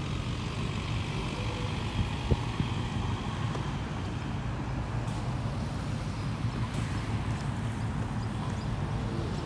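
Street traffic: cars driving past on the road, a steady low rumble, with a single sharp knock a little over two seconds in.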